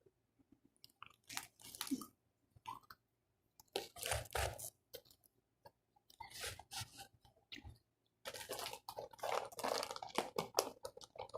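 A person chewing and biting food close to the microphone, in separate bursts of crunching, with the longest run of chewing near the end.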